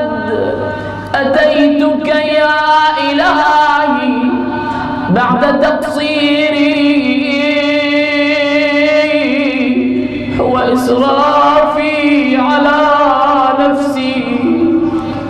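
A man's voice chanting a supplication in the drawn-out, melodic style of Shia du'a recitation, without accompaniment. Long notes are held and ornamented with wavering turns, with a short break just after the middle.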